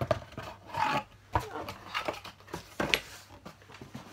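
Cardboard gift box being handled and opened: several short knocks and scraping rubs of cardboard.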